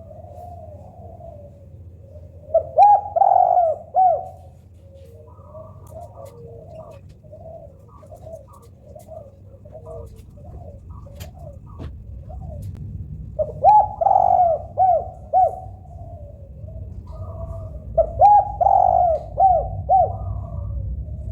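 Spotted doves cooing: three loud phrases of rolling coos, about three seconds in, about fourteen seconds in and near the end, with softer cooing between, over a low rumble.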